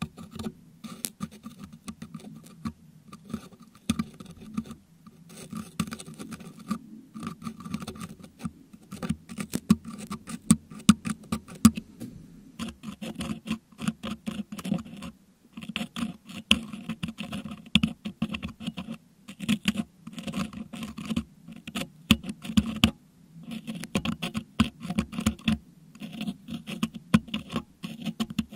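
Metal dental hook scratching and picking crushed meringue out of a Blue Yeti microphone's metal grille, right on the mic. A busy, uneven run of scrapes and small clicks, broken by a few brief pauses.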